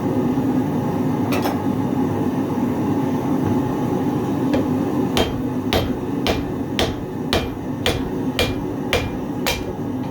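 Blacksmith's hammer striking hot 1095 carbon steel plate on an anvil: a blow about a second in, then from about halfway a run of nine evenly spaced blows, about two a second, each with a short metallic ring. A steady roar from the forge runs underneath.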